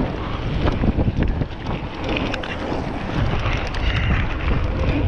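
Wind buffeting the microphone as a Nukeproof mountain bike rolls fast over dirt jumps, with tyre noise on loose dirt and frequent sharp knocks and rattles from the bike.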